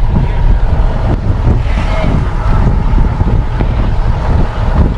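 Cabin noise inside a moving passenger jeep: a steady low rumble of engine and road, with wind buffeting the microphone.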